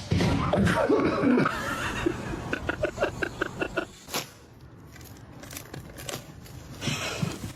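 A person laughing: loud at first, then a run of short, quick laughs that fades down.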